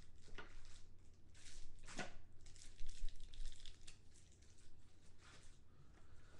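Faint rustling and a few light clicks of a trading card being handled and slid into a clear plastic card holder, with one sharper click about two seconds in.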